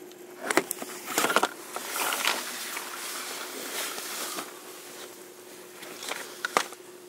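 Clicks, knocks and rubbing as a handheld camera is moved about at a window, with a rushing hiss in the middle and a faint steady hum underneath.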